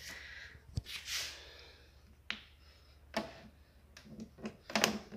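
Handling noise and a few sharp clicks and knocks on a solar LED floodlight's plastic housing, spaced about a second apart with a quick cluster near the end, as the lamp is handled to switch it off.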